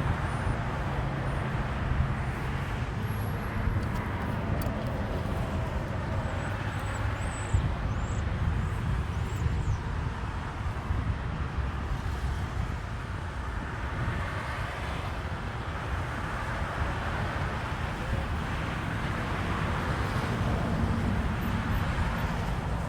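A steady low rumble of motor traffic or engine noise in open air.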